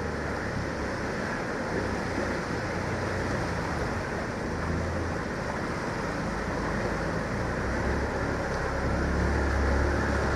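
Auto-rickshaw driving through flood water: its small engine running with a low rumble while water sloshes and splashes around the wheels, growing louder near the end as it comes closer.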